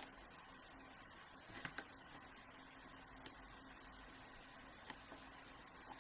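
A few faint clicks of a lock pick and tension wrench working inside a padlock's pin-tumbler core, held under heavy spring pressure: a couple about a second and a half in, then single clicks near three and five seconds, over a faint steady hum.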